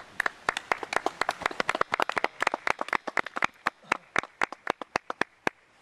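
A small group of people clapping: quick, uneven, sharp claps close by, thinning out and stopping about five and a half seconds in.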